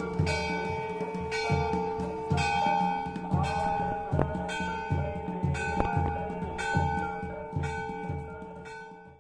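Temple bell rung over and over, about two strokes a second, its ringing carrying on between strokes, with a low beat under each stroke. It fades away near the end.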